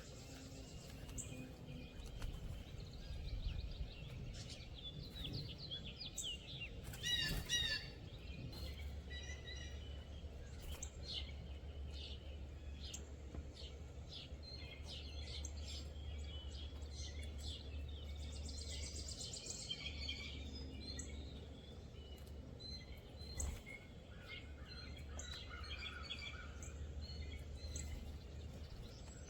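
Several wild songbirds chirping and calling, with one louder, stronger call about seven seconds in. A steady low rumble runs underneath from about eight seconds on.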